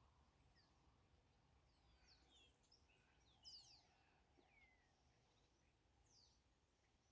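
Near silence with faint birdsong: a cluster of quick, downward-sliding chirps and whistles in the middle and one more near the end, over a faint low background rumble.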